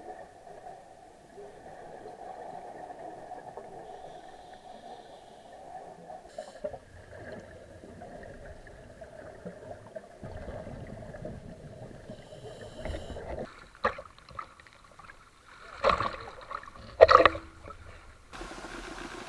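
Muffled underwater noise recorded by a diving camera, with gurgling, then two loud splashes near the end as the camera breaks the surface, followed by a steady hiss of wind and waves.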